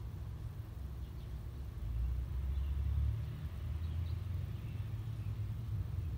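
Low, steady outdoor rumble that swells about two seconds in, with a few faint high chirps above it.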